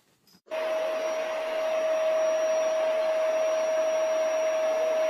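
An electric household appliance motor switches on abruptly about half a second in and runs steadily: a constant hum over an even rushing noise.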